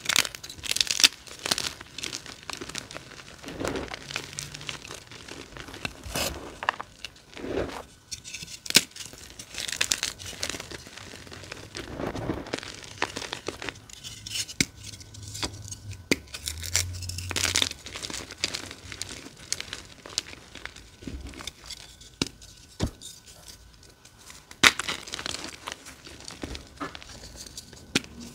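Blocks of dyed gym chalk crushed and crumbled between the fingers: irregular crunching and gritty crumbling, with a few sharp cracks as pieces snap.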